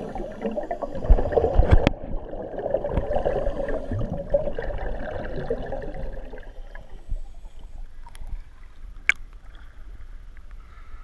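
Underwater bubbling and rumble from scuba divers' regulator exhaust bubbles, muffled as heard from under the water, with two sharp knocks in the first two seconds. The bubbling fades after about six seconds to a quiet hiss, broken by a single click.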